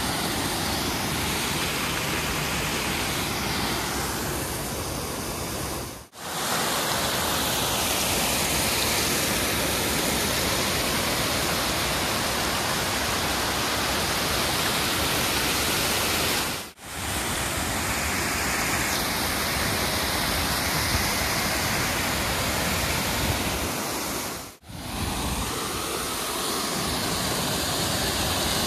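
Water pouring over a small waterfall: a steady, even rush of water noise. It drops out suddenly three times for an instant, where clips are cut together.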